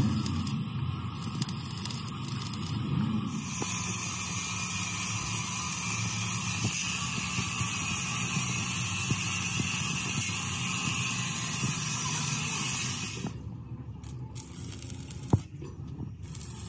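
Stick (arc) welding on a steel truck chassis frame: the welding arc crackles and sizzles steadily, then stops about three-quarters of the way through, followed by one sharp click.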